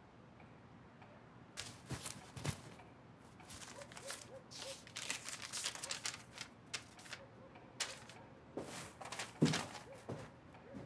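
Soft paper rustling and small handling clicks in a quiet room, coming in a scatter of short crackles that thicken in the middle and again near the end.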